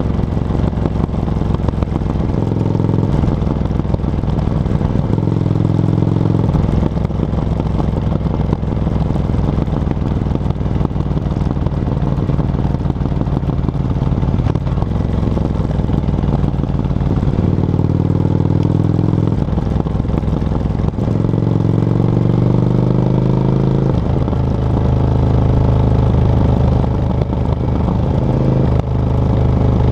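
Yamaha XV535 Virago's air-cooled V-twin running through a SilverTail K02 aftermarket exhaust while being ridden. The engine note rises and falls several times with the throttle.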